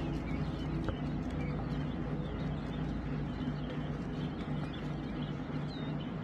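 A brood of young chicks peeping faintly and sporadically, over a steady low hum.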